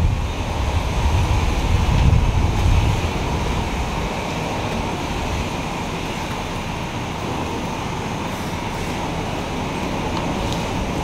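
Steady rumble and rush of a vehicle on the move, like road and wind noise. The low rumble is heavier for the first couple of seconds, then settles.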